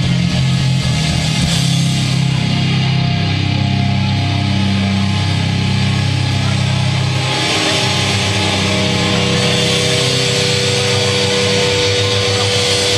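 A live heavy rock band playing loud, with distorted guitars, bass and drums. The low notes shift every second or so in the first half. About halfway through it settles into a held, ringing tone under a wash of cymbals.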